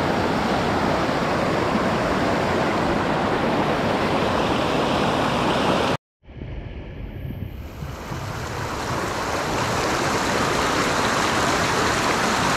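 Rushing river water: a steady, even roar of current. It cuts out briefly about six seconds in and comes back muffled before building back to full strength.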